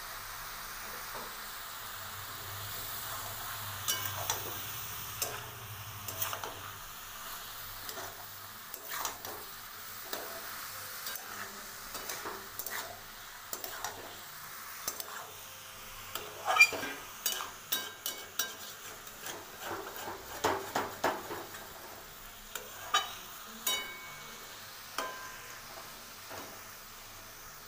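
Metal spatula scraping and tapping against a metal wok while sliced mushrooms are stirred into a wet masala, over a steady sizzle of frying. The scrapes come in irregular clusters, thickest and loudest past the middle.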